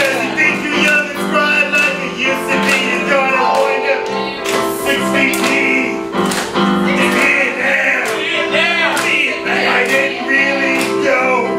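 Live band music with a voice singing over held chords and a steady beat.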